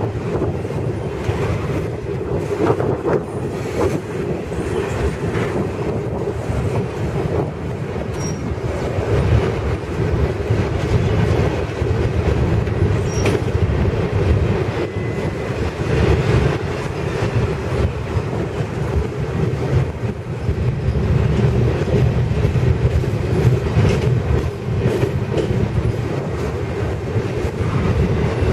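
Norfolk Southern freight train's double-stack container well cars rolling steadily past close by: a continuous rumble of steel wheels on rail.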